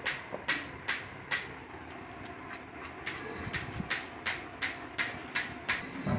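Rhythmic metallic tapping, about two to three evenly spaced taps a second, each with a bright ring. The taps pause for a moment about a second and a half in, then resume.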